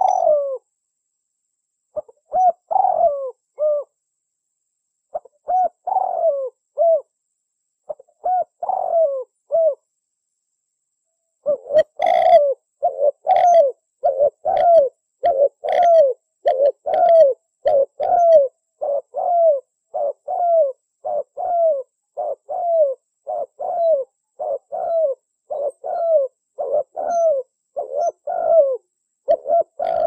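Spotted dove cooing: short, low coos that dip in pitch. For about the first ten seconds they come in three-note phrases with short pauses between. From about eleven seconds in they run on unbroken, roughly two coos a second.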